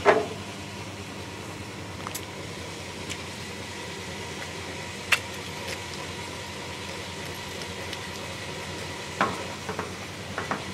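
A few sharp clicks and knocks as a wing fuel-tank filler cap and an avgas pump nozzle are handled and the nozzle is fitted into the filler neck: one at the start, another about five seconds in, and a small cluster near the end. Underneath is a steady outdoor hiss.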